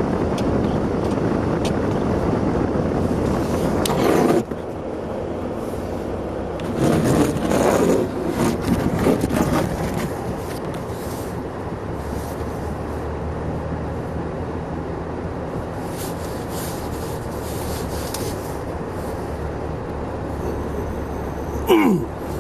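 A car driving through deep snow, heard from inside the cabin: steady tyre and road noise with the engine's low hum, and rough scraping stretches about four seconds in and again between about seven and ten seconds. A short sharp sound that falls in pitch comes near the end.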